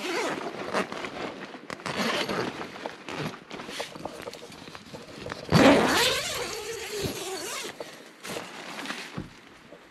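Nylon tent fabric rustling and a tent door zipper being worked open, with a long, louder rasp about five and a half seconds in.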